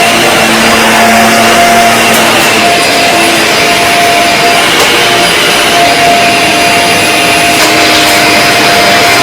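Dyson DC50 vacuum cleaner running steadily at one pitch, with a few brief clicks.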